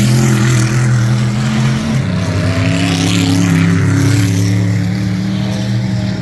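Vehicle engines running steadily at a dirt oval track, a deep continuous drone that shifts pitch about two seconds in.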